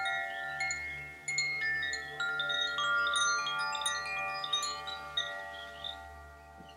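Hand-held tubular wind chime being shaken: many bright notes at several pitches, struck every half second to a second, ringing on and overlapping, then fading away near the end.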